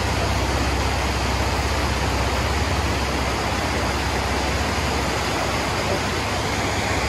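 Off-road truck driving along a trail: a low engine and drivetrain rumble under a steady rushing hiss of wind, tyre or water noise.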